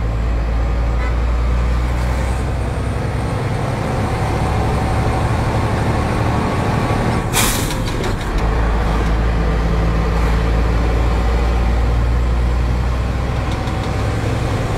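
Heavy truck's diesel engine running under way, heard inside the cab, with a steady low rumble. About seven seconds in there is one short, sharp hiss of compressed air from the truck's air system.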